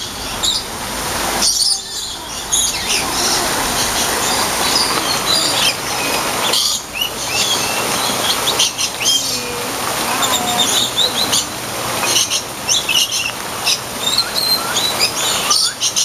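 Many birds chirping and calling: short, high chirps and squeaks that overlap, scattered throughout, over a steady background hiss.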